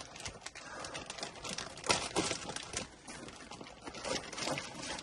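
Packing material rustling and crinkling as the next disc golf disc is pulled out of a cardboard box, with many irregular scrapes and small taps.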